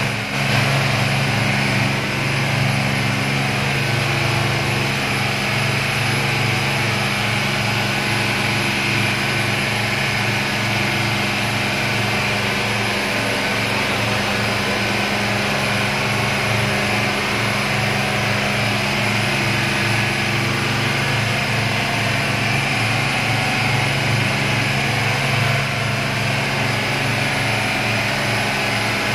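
Motorboat engine running steadily at speed, with the rush of wind and water over the hull.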